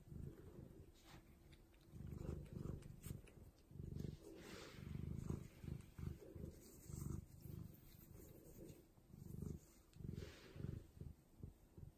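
Domestic cat purring in low, pulsing waves while it sniffs and nibbles catnip, with a few brief rustles of the leaves.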